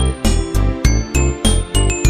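Upbeat background music with a steady bouncy beat, a bass line and bright tinkling bell-like notes.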